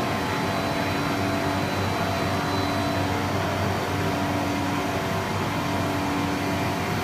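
COSMEC FOX CNC nesting centre running: a steady machine hum with several constant tones over a broad hiss, unchanging throughout.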